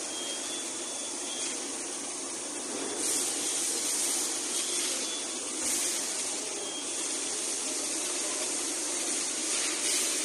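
Industrial machinery running with a steady hiss that swells several times, with a faint thin whine coming and going, like a tool-grinding machine working under spray.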